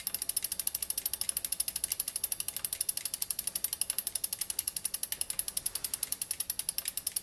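Bicycle rear freehub ratcheting as the wheel spins freely: an even, rapid run of sharp clicks, about fourteen a second, at a steady rate.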